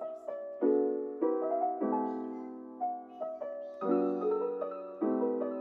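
Background piano music: chords struck one after another, about every half second, each ringing and fading before the next.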